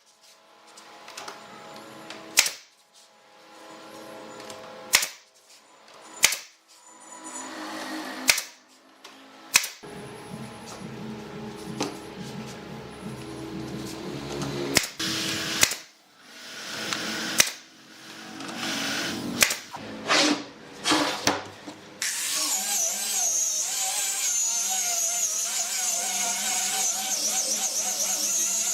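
Sharp knocks at irregular intervals of one to two seconds. About three-quarters of the way through, an electric power tool starts and runs steadily with a high, slightly wavering whine.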